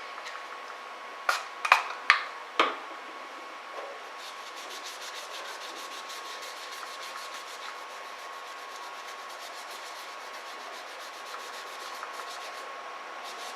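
Dried thermal paste being rubbed off an aluminium graphics-card heatsink moistened with alcohol, a fast, even scrubbing that starts about four seconds in. Before it, four sharp clicks sound close together in the first few seconds, the loudest sounds here.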